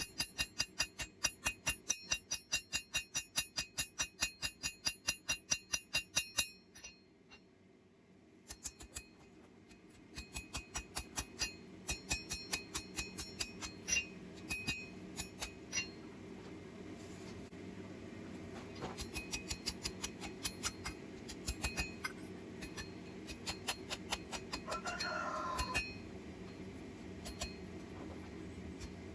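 Hand hammer striking hot iron on an anvil while forging, each blow ringing. A fast run of about four blows a second, a short pause, then lighter, more irregular blows.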